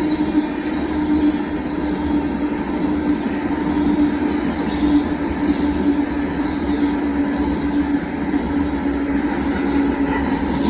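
Union Pacific gravel hopper cars rolling past at a steady pace: a continuous rail rumble with faint high wheel squeals now and then.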